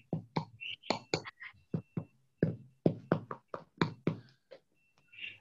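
A quick, irregular run of knocks or taps, about four a second, thinning out to a few scattered taps near the end.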